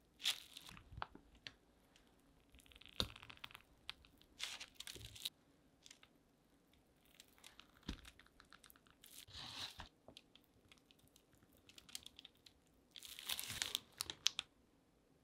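Plastic piping bag crinkling in short bursts as it is squeezed to pipe stiff butter cookie dough out through the nozzle onto parchment paper, with small clicks and squishes. The bursts come about five times, with quiet gaps between rosettes.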